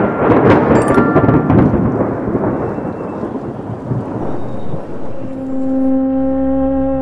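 Thunder sound effect: a loud rumble with rain-like hiss that fades away over several seconds, with a few short chime notes in the first two seconds. About five seconds in, a steady held music drone begins.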